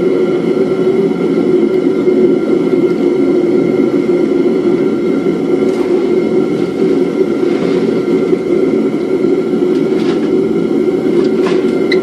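Steady, loud roar of a propane metal-melting furnace burner running, unchanging throughout. Near the end, water from the quench bucket splashes out onto the ground.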